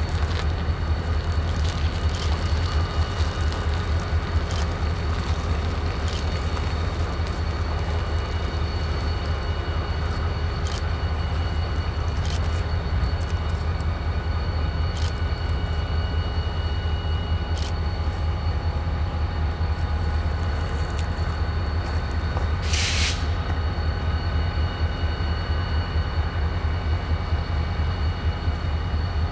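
Diesel-electric freight locomotives idling on a stopped train: a steady low rumble with faint steady whines and scattered clicks. A brief hiss comes about two-thirds of the way in.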